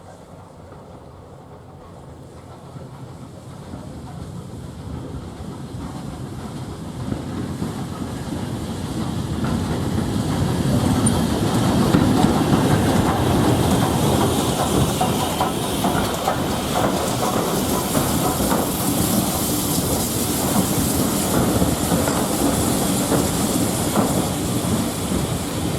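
A train approaching and running past on jointed track, wheels clicking over the rail joints. It grows steadily louder over about twelve seconds and then stays loud, with a hiss building in the upper range in the second half.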